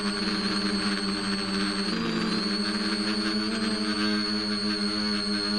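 Electric motor and propeller of an FPV model aircraft, picked up by its onboard camera: a steady buzzing whine whose pitch dips briefly about two seconds in, then settles back.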